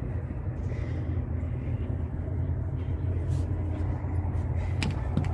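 Steady low rumble of wind and handling noise on a body-worn camera's microphone, with a few sharp clicks near the end.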